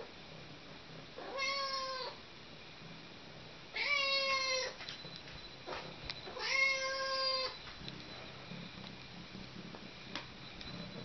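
Brown tabby kitten meowing three times, each a drawn-out call, begging for the wet food held above it. Near the end a low, steady purr starts as it begins to eat.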